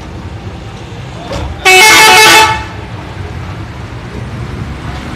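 A Zain Putra bus's telolet multi-tone musical horn sounds one quick run of changing notes lasting just under a second, over a steady low rumble.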